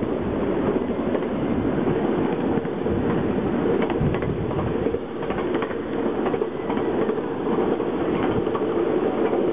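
A train running along the track: a steady rumble with wheels clicking irregularly over the rails.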